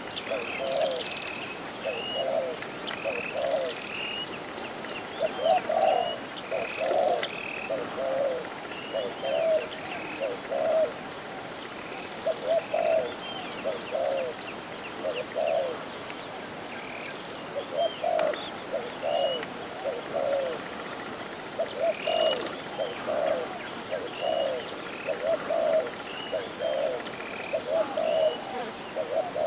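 Doves cooing in repeated runs, about a call a second, with small chirps higher up and a steady high-pitched whine underneath.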